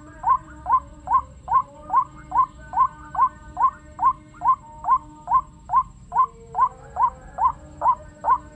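White-breasted waterhen call played as a lure through a homemade loudspeaker: a short rising 'kru-ak' note repeated at a very even rate, about twice a second, over a low steady hum.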